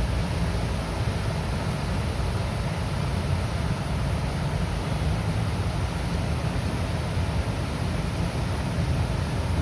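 Water released through a river dam's gates, a steady rushing roar with deep low rumble.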